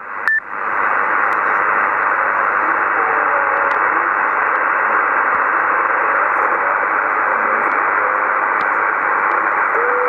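Steady hiss of an empty CB channel heard on a Yaesu transceiver in lower-sideband mode, the receiver's noise rising after a transmission drops out. There is a brief beep just after the start, and a steady whistle-like tone comes in right at the end as the next signal arrives.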